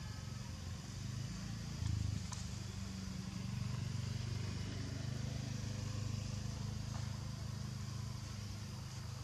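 Steady low rumble of an engine running, with a faint high hiss over it.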